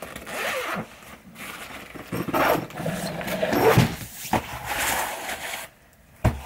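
Zipper of a padded nylon ring-light carry bag being pulled open in several strokes, with scraping and rustling of the bag and its foam insert as it is opened out; a short knock near the end.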